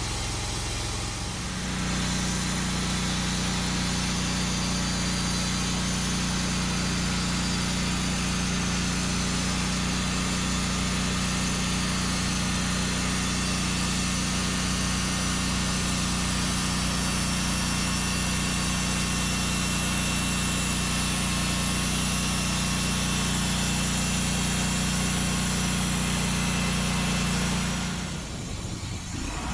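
Sawmill saw-head engine on a Norwood Lumbermate Mark IV mill picking up speed about a second and a half in, then running steadily at that speed before dropping back near the end.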